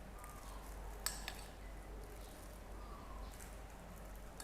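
Two quick clinks of a spoon against a dish about a second in, over a faint steady hum.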